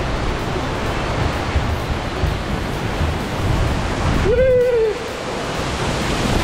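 Waterfall making a steady, loud rushing roar. About four seconds in, a short high-pitched voice cry rises and falls over it.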